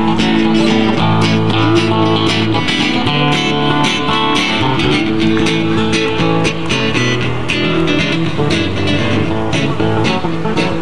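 Live acoustic guitar music: two acoustic guitars strummed in a steady rhythm.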